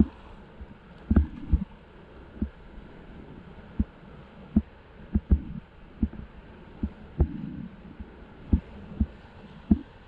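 A steady rush of river rapids, muffled, under a raft running whitewater. Dull low thumps come irregularly, about once a second and sometimes in quick pairs, as the inflatable raft bounces through the waves and knocks against the camera.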